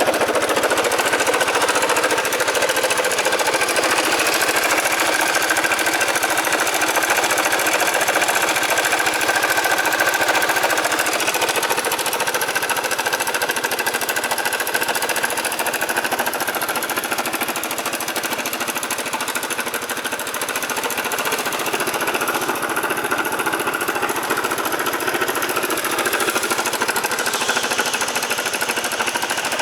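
Kymco Racing King 180Fi scooter's single-cylinder engine running with a rapid mechanical clatter from the top end, the abnormal noise of a cam chain whose tensioner bar has broken. The noise dips a little about two-thirds of the way through, then picks up again.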